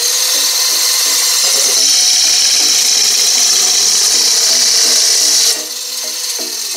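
Small cutting disc of a homemade electric pruning machine grinding into a branch from underneath: a loud steady hiss over the steady whine of the spinning drive. About five and a half seconds in, the hiss stops and the disc spins on free with only the whine left.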